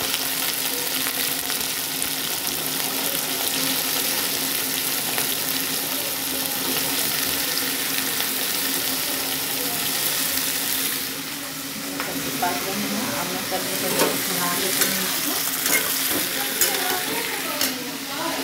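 Cubed potatoes and sliced onions sizzling as they fry in hot oil in a kadhai, a steady hiss. About eleven seconds in the hiss eases and a run of sharp clicks and knocks follows as the vegetables are stirred in the pan.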